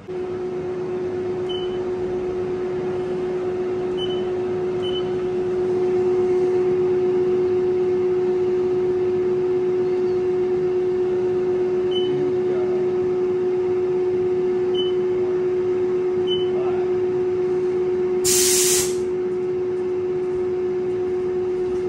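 Haas CNC mill's spindle running steadily with a half-inch edge finder in it, giving a constant whine that gets a little louder about five seconds in. There are a few faint ticks, and a short hiss about eighteen seconds in.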